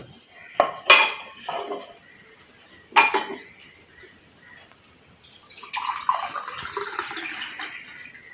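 Kitchen pots and utensils being handled: several sharp metallic clinks and knocks in the first three seconds, then a few seconds of continuous noise toward the end.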